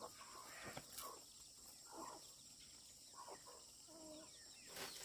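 Near silence with a few faint, scattered clucks from free-ranging chickens.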